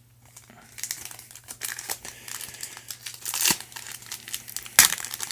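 Foil wrapper of a 2019 Leaf Draft football card pack crinkling and crackling as it is handled and torn open, starting about a second in, with the sharpest rip near the end.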